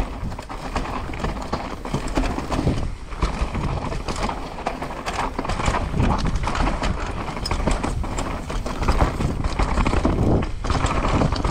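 Downhill mountain bike running over rough trail: steady tyre and rumble noise with a constant clatter of small knocks and rattles from the bike.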